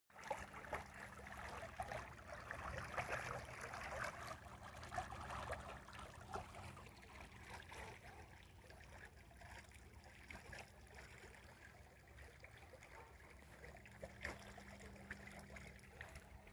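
Faint trickling water from a backyard swimming pool, clearest in the first several seconds and fading after, over a steady low hum.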